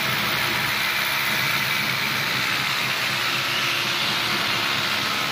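Steady rushing noise of a construction site with a faint low hum underneath. It runs evenly, with no distinct knocks or strokes.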